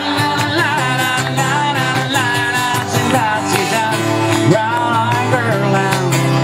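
A pop-rock song playing: a singing voice over guitar and band accompaniment, steady and loud throughout.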